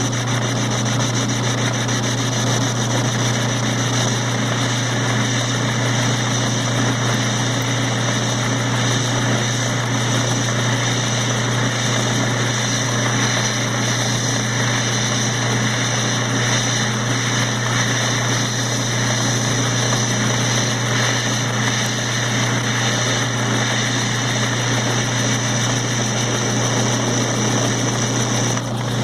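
Homemade Gingery metal lathe running steadily, driven from its motor through wooden pulleys, with a steady low hum, while taking a very light cut on aluminium.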